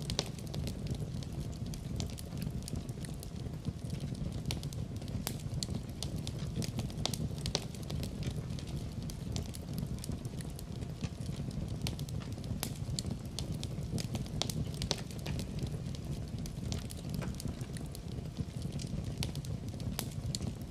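Wood fire burning in a fireplace: constant crackling, with frequent sharp snaps over a steady low rumble of the flames.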